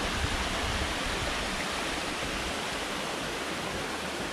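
Small rocky hill stream rushing steadily as it tumbles over little cascades.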